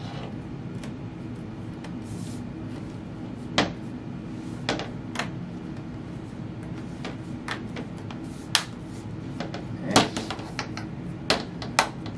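Clips of a Dell XPS 13 laptop's bottom cover snapping into place as the cover is pressed back on: a string of sharp, irregular clicks, about eight in all, the loudest near the end.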